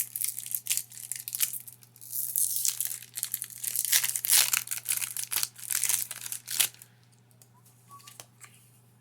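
Foil Pokémon booster pack wrapper crinkling and tearing as it is ripped open and handled, stopping a little over two-thirds of the way through.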